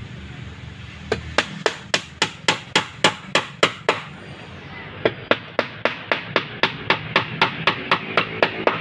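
Hammer driving nails through a plywood side panel into a wooden boat frame: quick, even strikes about three or four a second, with a short break around the middle.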